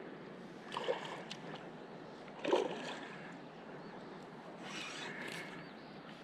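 River water running steadily, with three brief louder bursts of sound.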